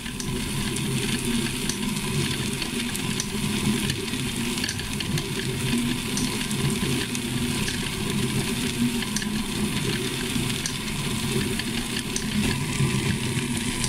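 Motor-driven bucket star roller running steadily: a low motor drone with a fine, constant patter of small ticks as the firework stars tumble inside the turning plastic drum.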